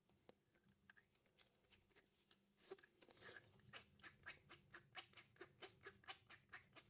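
Faint, light clicks and taps of small compressor parts being handled and worked on. They start about a third of the way in and come about four a second.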